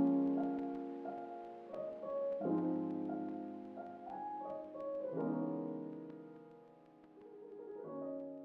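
Outro music of soft, sustained keyboard chords, with a new chord coming in about every two and a half seconds and fading away.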